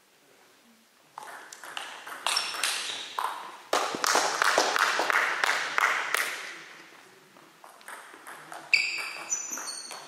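Celluloid table tennis balls clicking on bats and table, ringing in a large hall. A dense run of knocks fills the first half, and near the end a rally starts with sharp, ringing pings.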